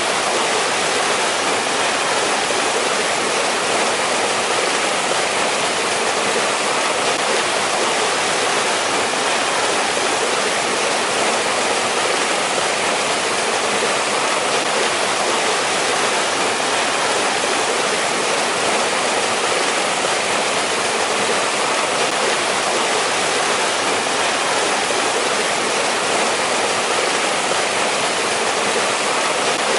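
Valley stream rushing steadily, an even, unbroken hiss of flowing water.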